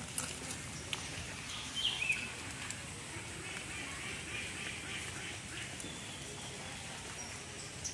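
Animal calls over a steady hiss: a brief two-note chirp about two seconds in, then a raspy run of calls through the middle, with scattered faint clicks.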